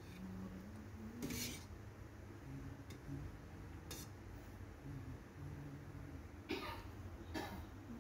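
A ladle scraping and clinking a few times against a stainless steel pot of thick sauce, with faint low humming in between.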